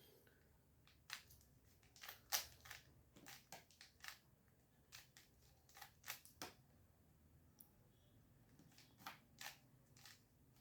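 Plastic 3x3 Rubik's cube being turned by hand: faint clicks and clacks of the layers snapping round, in short quick runs of turns with pauses between them.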